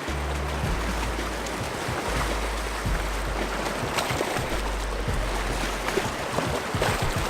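Wind buffeting the microphone in low rumbling gusts over a steady rush of water at the shore, with a few short sharp clicks.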